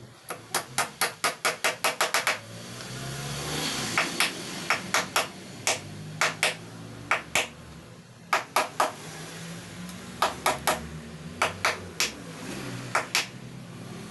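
Hammer striking the wooden base of a console table again and again: a quick run of about a dozen light blows in the first two seconds, then pairs and short runs of blows, each with a short metallic ring.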